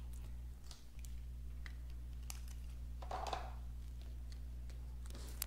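Light, scattered clicks and taps as small die-cut pieces are poked out of a foil-paper leaf with a pointed piercing tool and the leaf is handled and set down, with one sharper click near the end, over a steady low hum.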